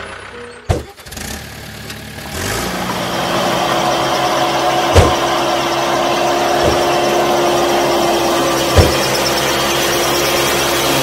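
Tractor engine starting about two seconds in and then running steadily, with an occasional sharp knock.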